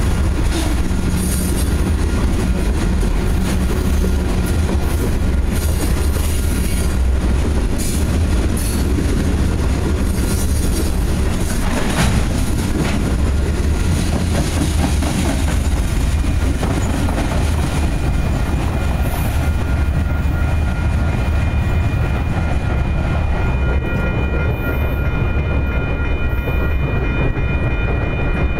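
Freight cars of a grain train rolling past on the track: a steady heavy rumble with wheel clatter and rattling. About halfway through, a thin steady high-pitched ringing joins in.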